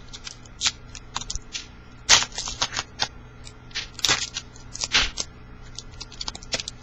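Football trading cards being handled and flicked through: an irregular run of short rustles and snaps of card stock, loudest about two, four and five seconds in.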